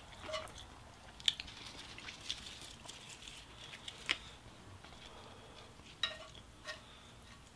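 Chopsticks clicking and scraping against a pan of grilled pork and the dishes around it as pieces are picked up. The taps are scattered and irregular, the sharpest about a second in and about four seconds in, with a few more near the end.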